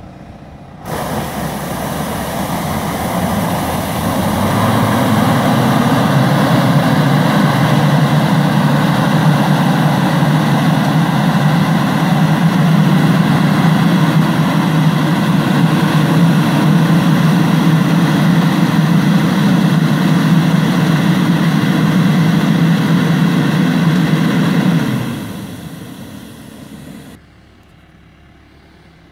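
Tractor-mounted airblast orchard sprayer running and spraying: its axial fan blasting air and mist while the tractor engine drives it, a loud steady roar over a strong low hum. The roar starts abruptly about a second in and fades away near the end as the sprayer moves off down the row.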